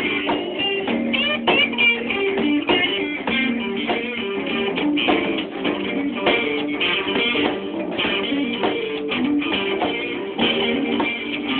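Guitar music without singing: a continuous instrumental passage of quickly picked notes and strummed chords.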